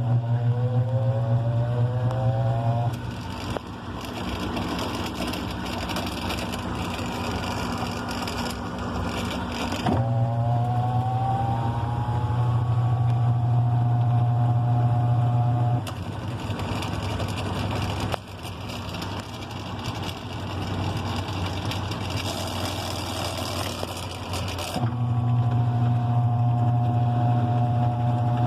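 LG washing machine on its spin cycle: the motor hums with a whine that rises in pitch as the drum spins up, then cuts out suddenly after a few seconds, leaving a rough rushing noise until it starts again; this happens three times. It is the noise this machine makes when spinning, shown as a fault.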